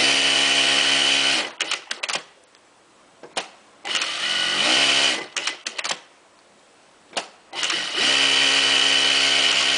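Juki DDL-5550N-7 industrial single-needle lockstitch sewing machine stitching at speed in three short runs, each under two seconds, with a steady hum from its SC-1 computerized servo motor. There are short clicks in the pauses between runs.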